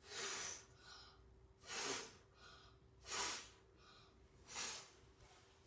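A child blowing hard puffs of breath at a styrofoam boat floating in water to push it along: four puffs, about a second and a half apart.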